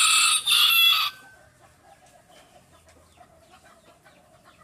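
A rooster crowing, its call ending about a second in; after that only faint sounds remain.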